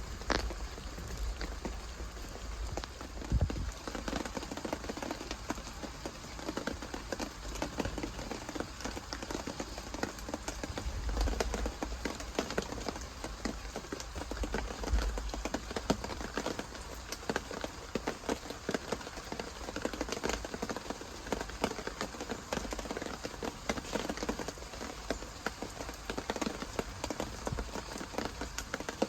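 Steady rain falling, many small drop ticks over a hiss, with a couple of sharper knocks in the first few seconds.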